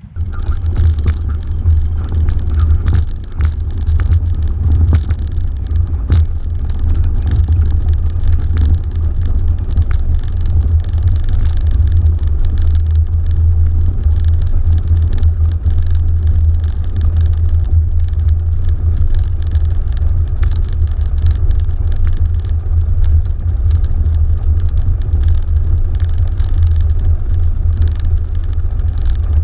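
Piper PA-28 Archer II's four-cylinder Lycoming engine and propeller running steadily at low power, a deep drone heard from inside the cabin as the plane taxis on the ground.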